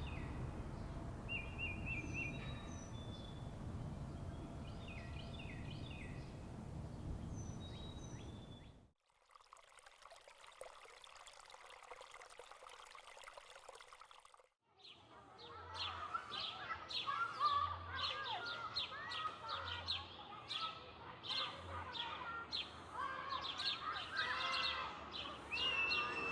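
Outdoor ambience in three cuts: a low wind-like rumble with scattered birdsong, then a steady hiss, then a busy chorus of many birds singing and chirping.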